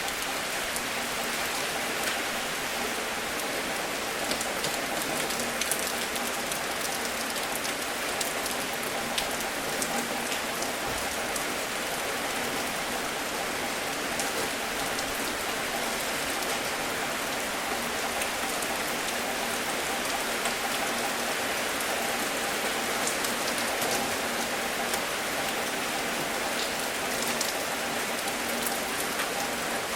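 Steady rain falling on a surface, a continuous hiss with scattered sharp drop ticks.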